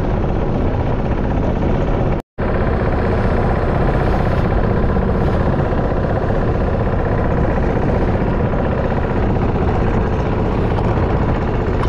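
Engine of a small wooden fishing boat running steadily under way. The sound cuts out for a moment about two seconds in.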